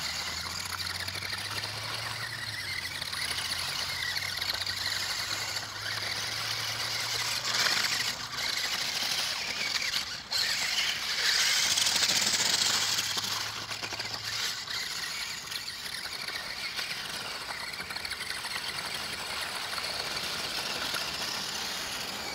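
Spin Master All-Terrain Batmobile RC monster truck's electric motors whining steadily as it drives through shallow puddles and slush, swelling louder a couple of times as it speeds up.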